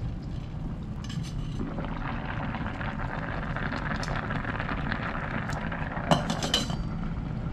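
Small electric rice cooker with its metal lid lifted about a second in, then water and rice boiling and bubbling in the open pot. The metal lid clinks back down onto the pot about six seconds in.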